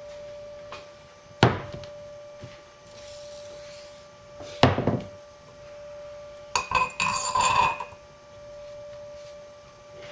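Steel parts knocking and clinking against a Land Rover Series front half shaft held in a bench vice as a spacer and seal collar are worked onto it. Two sharp knocks come about a second and a half and four and a half seconds in, then a quick run of ringing metal clinks, over a faint steady tone.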